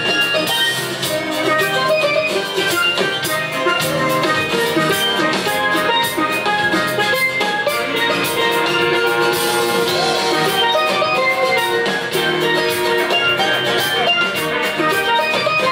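Live band playing an instrumental passage with no singing: strummed acoustic guitar, violin, keyboards and drum kit.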